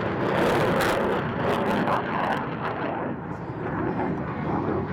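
Jet noise from an F-22 Raptor's twin F119 turbofan engines as the fighter flies past and away. The sound is loudest at first, then fades, and its high hiss drops out about two and a half seconds in.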